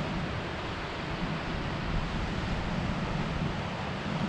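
Steady rushing outdoor noise of wind buffeting the microphone, mixed with ocean surf.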